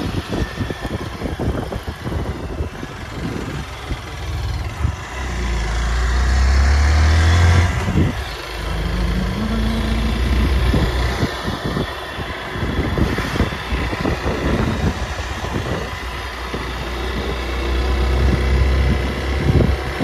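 Motorbike engine running while riding along a road, its note rising as it speeds up about five to seven seconds in and dropping sharply near eight seconds, with wind buffeting the microphone throughout.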